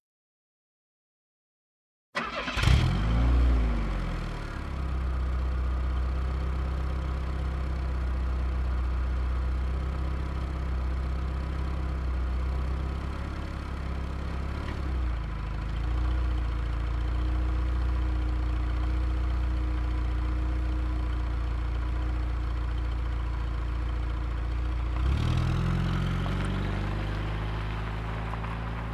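Car engine starting about two seconds in, revving up and back down once, then idling steadily. Near the end the note shifts briefly before settling again.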